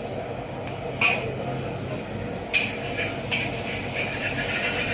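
Char kway teow stir-frying in a wok: the noodles sizzle steadily while a spatula scrapes and strikes the wok, with sharp scrapes about a second in and again halfway through. The sizzle grows louder after the second scrape.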